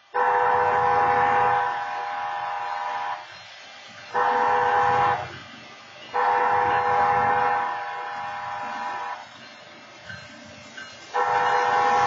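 Train horns sounding the grade-crossing warning: four loud multi-tone horn blasts, long, short, long and long, from an approaching BNSF locomotive together with the crossing's stationary wayside horns.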